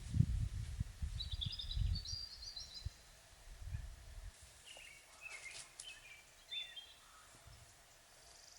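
Small birds chirping in short calls, twice, over low rumbling bumps that die away about four seconds in.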